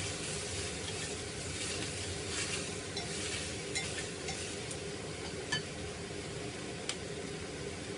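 A spoon stirring and scraping in a pan on the stove over a steady sizzling hiss, with a few light clinks about midway and near the end.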